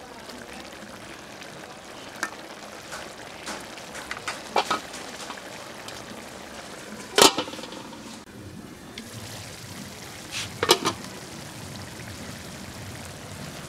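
Prawn and taro-stolon curry simmering steadily in a large metal karahi, with a few sharp knocks, the loudest about seven seconds in and another near eleven seconds.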